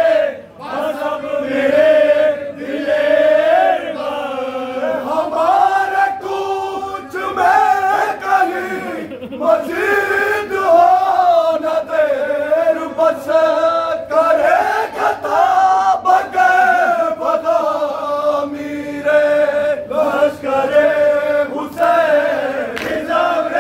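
Urdu noha, a Shia mourning lament, sung loudly by a male reciter at a microphone, with a group of men singing along in unison and striking their chests (matam).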